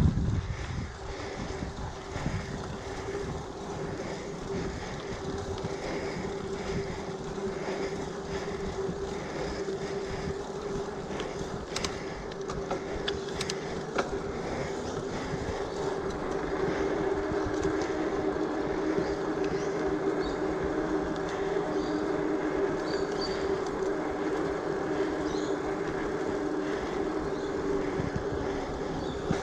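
Giant Fathom mountain bike ridden along a paved cycleway: steady tyre hum and rattle of the bike over the paving, with a sharp thump right at the start. It grows a little louder over the second half.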